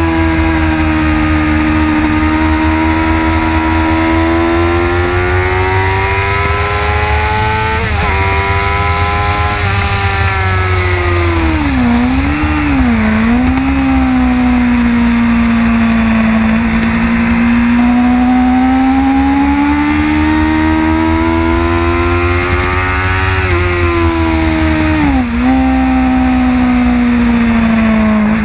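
A 2006 Kawasaki ZX-6R 636's inline-four engine at high revs on track, its pitch climbing and falling through the corners. The revs drop sharply twice in quick succession near the middle and once more near the end, as the gears change. A steady wind rumble on the onboard microphone runs underneath.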